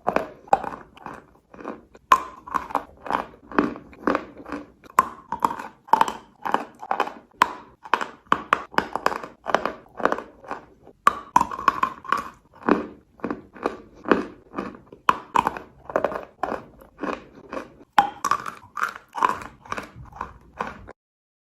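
Close-up crunching and chewing of a mouthful of eating chalk, with sharp crisp crunches about two or three times a second. It stops abruptly near the end.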